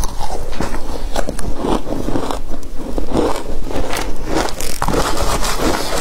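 Close-miked crunching of frozen matcha ice being bitten and chewed. Near the end a metal spoon scrapes and digs into the ice in a plastic tub.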